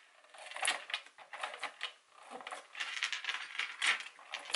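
Double-sided tape being pulled from a hand-held dispenser and pressed onto a small dog tag: a run of irregular clicks and crackles.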